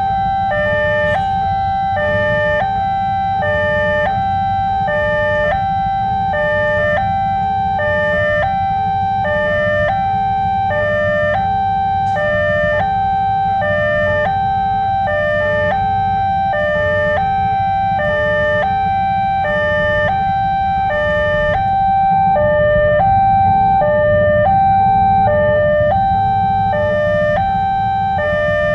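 Railway level-crossing warning alarm sounding an electronic two-tone hi-lo wail, signalling an approaching train. The two pitches alternate evenly, each held a little over half a second. A steady low rumble runs underneath.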